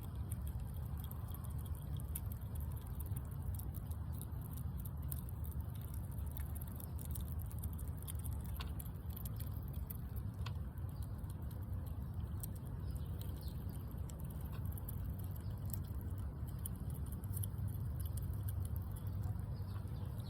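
A squirrel eating, with many small crisp clicks of seeds being bitten and cracked, over a steady low rumble.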